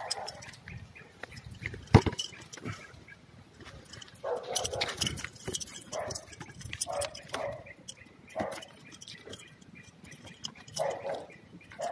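A dog barking repeatedly in short, separate barks, with one sharp knock about two seconds in.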